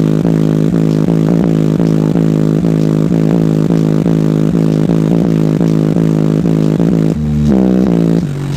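Competition car-audio bass system, two Sundown Audio Nightshade 10-inch subwoofers driven by two SAZ-3500 amplifiers, playing a pulsing bass track with the doors open at about 146 dB. It is heard as a loud buzzing bass note beating about three times a second, which briefly shifts pitch near the end.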